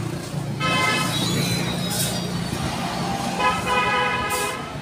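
A vehicle horn sounds twice, a short flat toot about half a second in and a longer one about three seconds in, over the steady low rumble of traffic.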